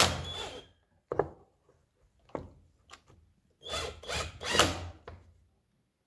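Cordless drill-driver driving screws into a tablesaw tenon jig: the motor runs in two short bursts, with a sharp knock about a second in.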